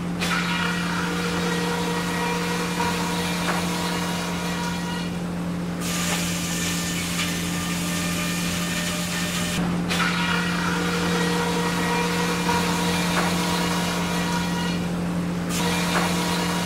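Machinery running steadily: a constant low hum with fainter steady tones and a hiss over it, the hiss thinning out a few times.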